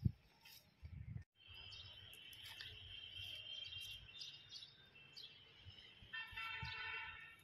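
Birds chirping and calling, with a louder, longer call near the end. A dull thump at the very start.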